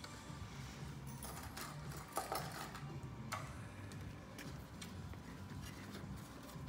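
Small clicks and taps of flat push pins being handled and pressed through black vinyl into the wooden frame, a cluster of sharper clicks about two seconds in and another a second later, over a faint steady hum.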